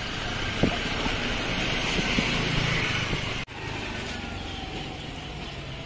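Steady roadside traffic noise from a busy street, with a brief sudden dropout a little past halfway where the footage is cut.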